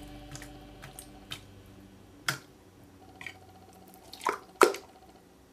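Blue slime being squeezed by hand and pressed into a clear plastic cup: a handful of short, scattered wet squelches and clicks, the loudest two coming close together a little after four seconds in.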